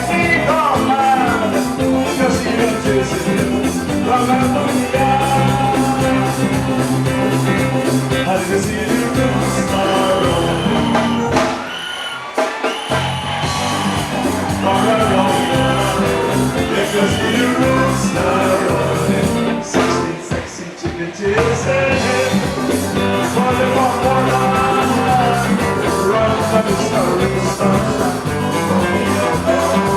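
Upbeat Caribbean band music, with a steady bass line, drums and a melodic lead. The bass drops out briefly about twelve seconds in and again around twenty seconds in.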